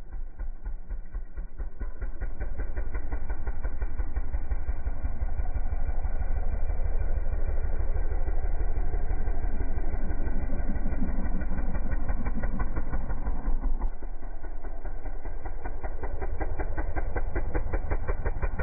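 Suzuki DR-Z110 pit bike's small single-cylinder four-stroke engine running as the bike is ridden around a dirt track, a rapid steady firing beat that grows louder over the first few seconds.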